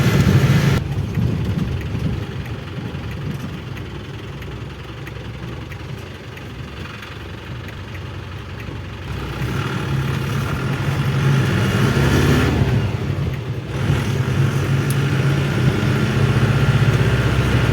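Volare A6 micro-bus diesel engine running on the move, heard inside the cab. Its sound drops away about a second in and stays lower for several seconds as the bus eases off, then builds again from about nine seconds in.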